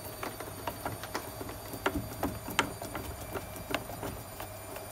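Phillips screwdriver turning a screw loose in a washing machine's plastic control-panel housing: a run of small, irregular clicks and ticks as the screw gives.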